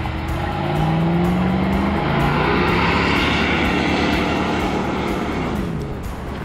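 SUV engine revving up as it pulls away across beach sand, with a rush of tyres and wind as it passes, then the engine note falls and fades as it drives off.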